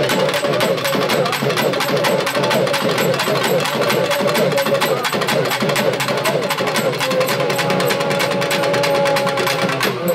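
Tamil festival drum troupe playing fast, dense rhythms on barrel drums struck with sticks and hands, with a sustained wavering tone over the drumming.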